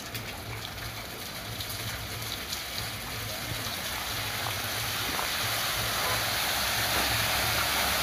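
Motor-pumped artificial waterfall running: water pouring and splashing in a steady rush that grows steadily louder.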